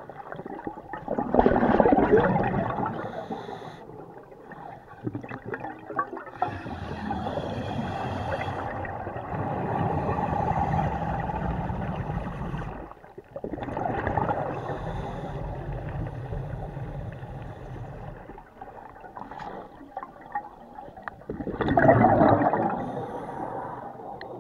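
Scuba air bubbling and rushing underwater in several long bursts, loudest about two seconds in and again near the end.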